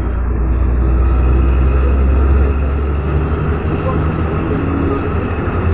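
Diesel engine of an Ikarus city bus running under way, heard from inside the cabin as a steady low drone over road noise, getting louder in the first second or so and easing a little after about two and a half seconds.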